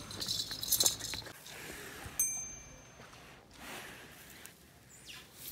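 Faint metallic jingling, then a single ringing clink about two seconds in.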